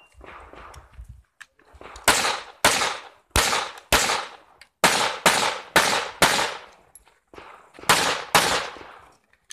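Pistol shots fired through a practical shooting stage: about ten loud shots, mostly in quick pairs about half a second apart, each followed by a short echo.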